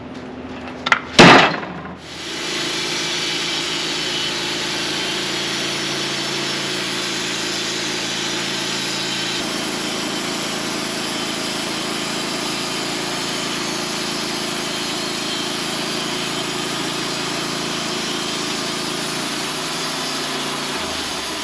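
Two sharp knocks about a second in, then a sawmill running and its blade cutting steadily lengthwise through a small maple log.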